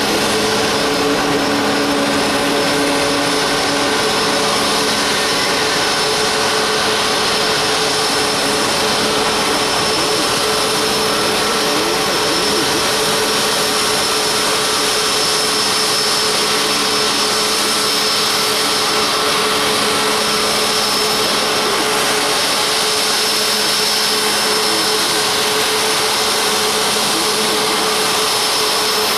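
Boeing 737 MAX 8's CFM LEAP-1B turbofan engines running at a steady low power, a constant rushing noise with a high whine and a lower hum held throughout.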